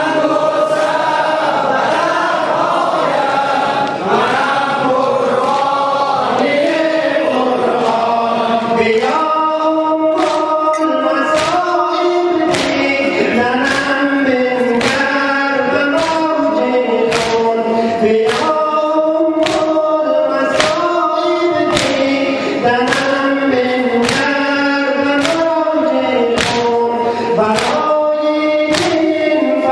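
A congregation of men chanting a mourning lament in unison while beating their chests (sineh zani). From about nine seconds in, the chanting is joined by a steady beat of chest slaps in unison, about three every two seconds.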